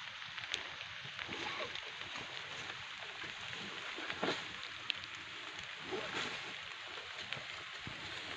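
Dry leaves and dirt rustling and crackling as a Komodo dragon drags and tugs a goat along the ground in its jaws, with scattered short clicks.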